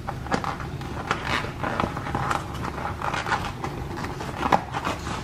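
Irregular rustling, crinkling and light clicks of food packaging and aluminium foil being handled, over a low steady hum.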